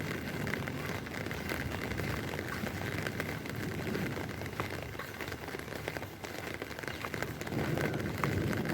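Steady heavy rain falling, with many small drops pattering and splashing onto hard surfaces and into a puddle.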